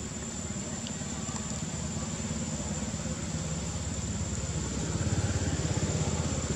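Low, steady rumble of a small engine running, growing louder about five seconds in, with a thin steady high whine above it.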